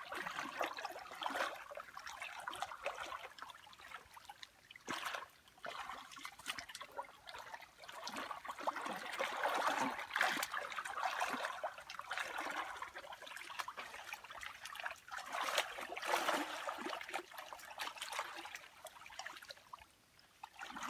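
Hands stirring and groping through shallow muddy water, with irregular sloshing and trickling splashes that come and go.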